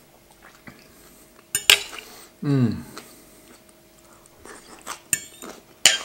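Knife and fork clinking and scraping on a plate as food is cut and picked up, with a few sharp clinks, the loudest about a second and a half in. A short voice sound falling in pitch about two and a half seconds in.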